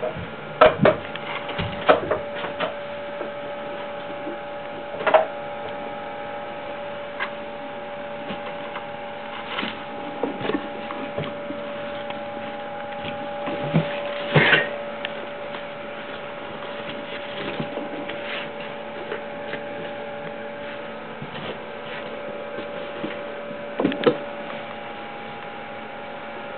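A steady electrical hum with scattered clicks and knocks as chinchillas move about a wire cage. The loudest knock comes about halfway through.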